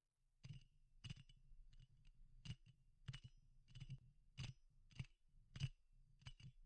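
Faint, evenly paced metallic clicks, about ten of them roughly one every 0.6 s, each with a brief high ring, over a faint low hum.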